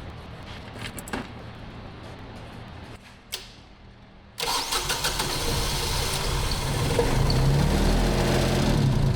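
Yanmar diesel engine of a New Holland E27B mini excavator starting on its newly replaced starter: a click about three seconds in, then the engine suddenly catches and runs, building up over a few seconds to a steady run.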